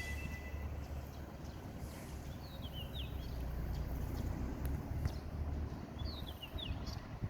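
A low, steady rumble, with a small bird calling twice: two short clusters of quick downward chirps.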